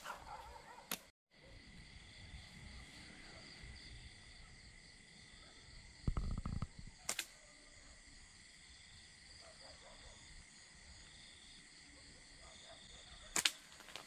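Night insects buzzing steadily in a high-pitched chorus, with a few sharp snaps about a second in, at about seven seconds and near the end, and a short low rumble of handling noise just before the middle snap.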